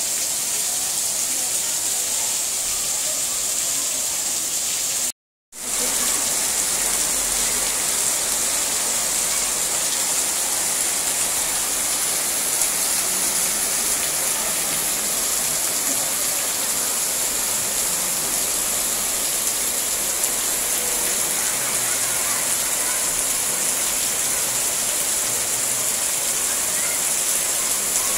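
Heavy rain falling steadily on roofs and paving, an even hiss with no letup. About five seconds in it cuts out to silence for a moment.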